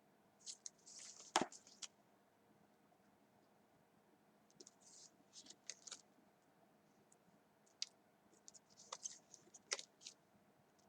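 Faint clicks and short scratchy rustles in three brief clusters, with the sharpest click about one and a half seconds in.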